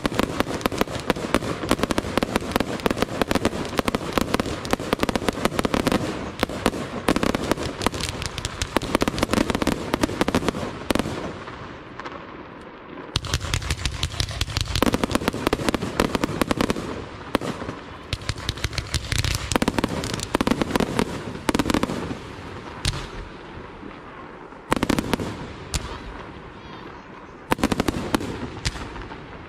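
Aerial fireworks display: a dense, rapid run of shell bursts and bangs, easing off briefly around twelve seconds in and again a little past twenty seconds, then resuming with louder single bangs.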